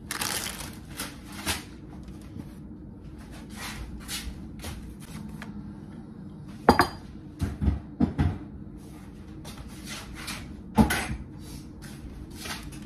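Kitchen handling sounds: a glass bowl, a wooden trivet and a cutting board being moved and set down on a wooden counter, giving short knocks and clinks. The sharpest knocks come a little past halfway, and one more comes near the end.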